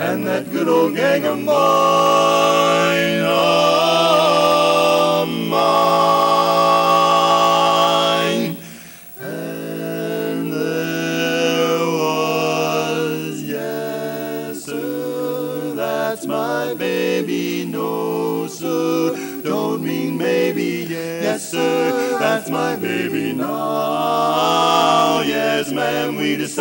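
Four-part male barbershop quartet singing a cappella in close harmony. Long held chords fill the first eight seconds or so; after a brief dip, the chords move in shorter, quicker phrases.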